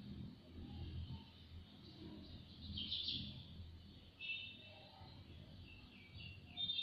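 Faint birds chirping, a scatter of short high calls and trills, over a low background rumble.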